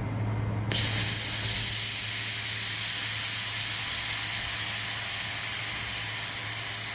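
Shielding gas hissing from a handheld fiber laser welding head as it welds stainless steel. The hiss starts suddenly about a second in and then runs evenly, over a steady low machine hum.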